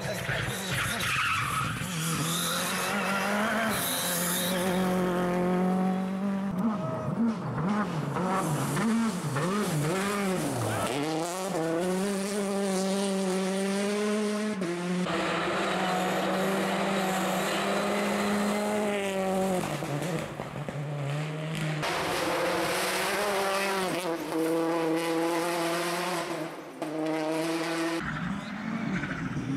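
Turbocharged four-cylinder R5 rally cars, among them a Ford Fiesta R5 and a Citroen DS3 R5, run hard on stage in several separate passes. The engine note climbs through the gears and drops on lifts, and partway through it swings up and down several times in quick succession.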